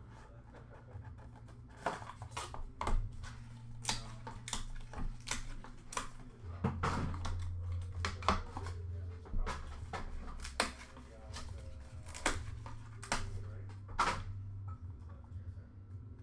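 A Leaf Lumber hockey card box being handled and opened by hand: irregular clicks, taps and scrapes of cardboard and packaging, over a steady low hum.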